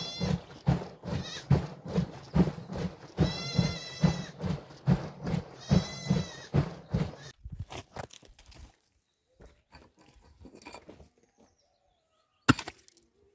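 Goats bleating, three calls, the middle one longest, over a rapid run of knocks. After about seven seconds the calls and knocks stop, and a single sharp knock comes near the end.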